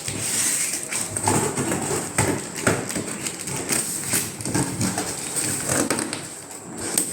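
Cardboard packaging of a ceiling fan being handled and opened: irregular knocks, clicks and rustling, over a constant thin high whine.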